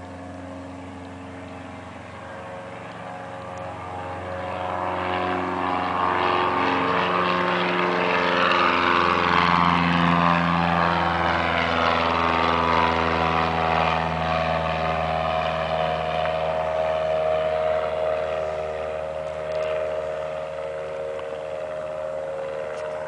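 Cessna 150's four-cylinder Continental O-200 engine and propeller at full takeoff power. It grows louder as the plane rolls and lifts off, drops in pitch as it passes, then goes on steadily as it climbs away.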